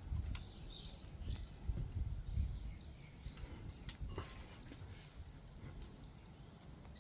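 Small birds chirping repeatedly over a low, uneven rumble, with a single sharp click about four seconds in.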